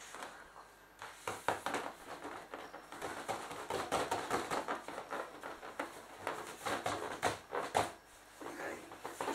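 Taut vinyl of an inflated clownfish pool toy being pressed and rubbed by hands and legs: an irregular run of plastic creaks, crackles and taps.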